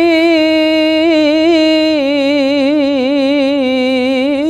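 A male Quran reciter chanting in melodic tilawah style, drawing out a single vowel as one long held note with wavering ornaments, its pitch stepping down slightly about two seconds in.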